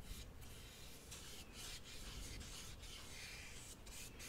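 Faint, scratchy rubbing of a paintbrush stroked up and down on watercolor paper, in a series of uneven strokes.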